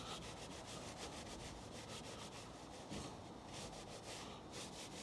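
A long-handled wheel brush scrubbing inside a car's metal exhaust tip in quick, even back-and-forth strokes, cleaning off road grime.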